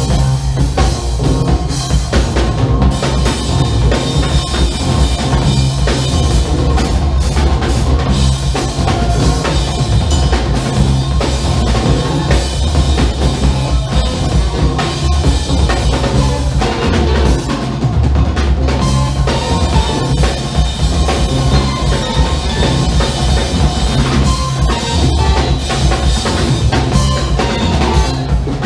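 A funk band playing live, with the drum kit's kick, snare and rimshots to the fore over a deep bass line.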